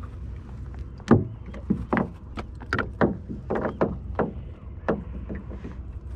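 A run of irregular knocks and thumps on a small fishing boat as an eel is swung aboard on the line, over a steady low wind rumble.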